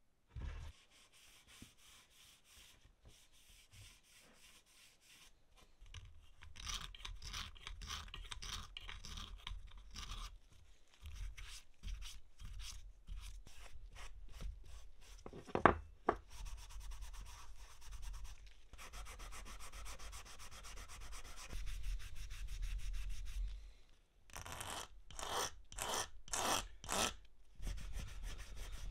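Rapid back-and-forth scrubbing strokes on the wooden body of an old wooden jack plane as the grime is cleaned off, in runs of several strokes a second. A single sharp knock about halfway through is the loudest sound.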